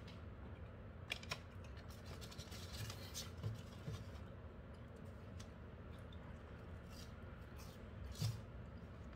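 Paper fast-food wrapping and fry packet rustling and crinkling in short scattered bursts as fries are handled.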